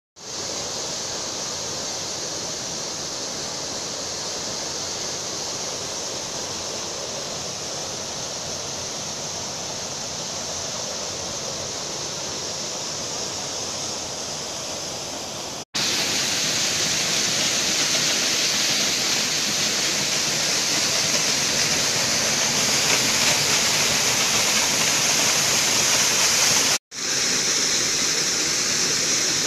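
Waterfall rushing with a steady, even noise of falling water. It cuts out for an instant twice and is louder after the first break.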